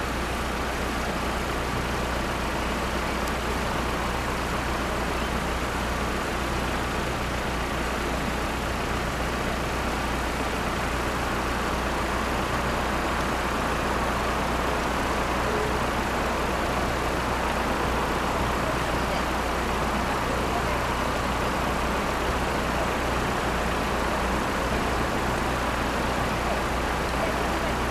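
Steady road-traffic noise with a low, constant engine hum from vehicles idling, rising a little in the second half.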